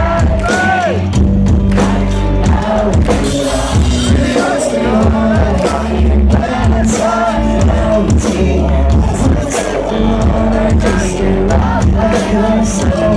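Pop-punk band playing live in a hall, with singing over heavy bass and drums.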